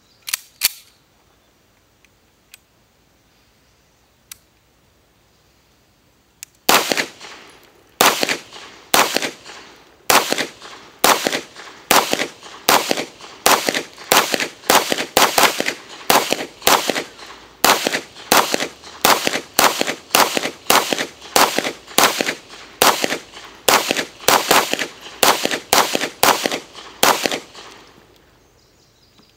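Beretta M9 9mm pistol fired steadily through a 30-round magazine, about two shots a second for some twenty seconds, each shot with a short echo. A few sharp clicks come first, and the shooting starts about seven seconds in.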